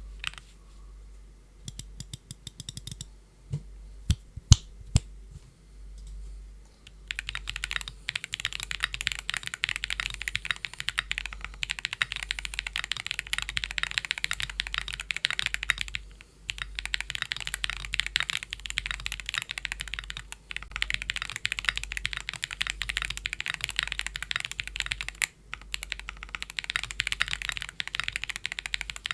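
Typing on a TKD Cycle7 mechanical keyboard with an aluminium plate, no foam, lubed Gateron Baby Kangaroo tactile switches and PBT keycaps. A short run of keystrokes and a few single loud presses come first. From about seven seconds in, fast continuous typing follows, with brief pauses every few seconds.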